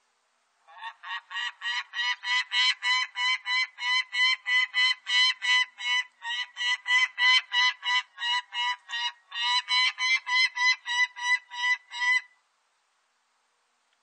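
Peregrine falcon cacking: a long run of short, repeated kak calls at about four a second, with two brief breaks, stopping about twelve seconds in.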